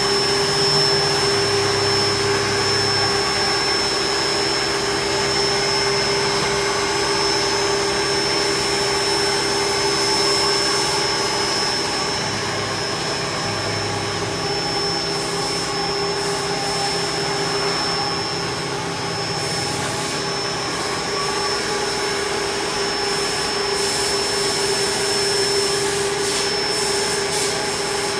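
Doosan Puma V400M CNC vertical turning lathe running under power: a steady mechanical hum with two constant whine tones, one mid-pitched and one very high. Lower hum tones step on and off a few times.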